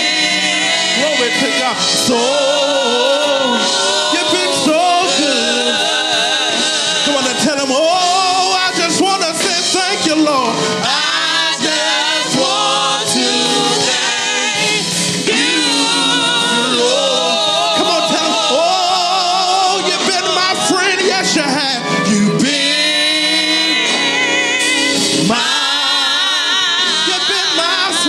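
Church praise team singing gospel music, a man's voice leading with women's voices singing along.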